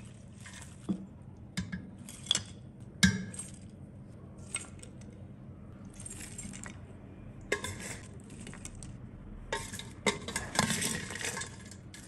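A steel spoon clinking and scraping against a stainless steel bowl as crisp fried cauliflower pieces are tossed and scooped out. The clinks come scattered, with the sharpest knock about three seconds in and a run of scraping near the end.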